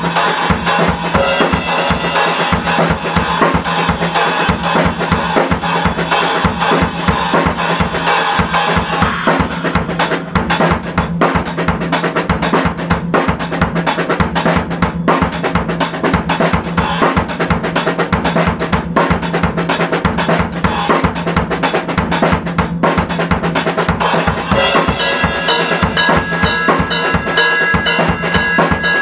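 Acoustic drum kit played in a continuous groove: bass drum, snare and ringing cymbals. About nine seconds in, the pattern changes to crisper, more distinct strokes.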